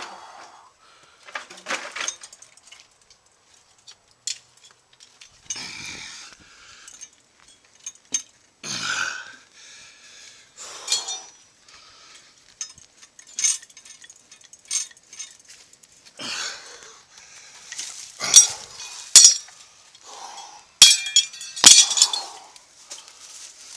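Irregular sharp metal clinks and knocks from a post-pulling jack and its chain being worked to pull a fence post, with the loudest strikes near the end.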